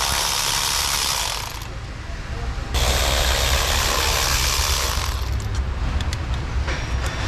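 Ratchet wrench working the bolts of an ignition coil being swapped to another cylinder to test a misfire: a run of ratcheting, a short pause about two seconds in, a longer run, then separate clicks near the end.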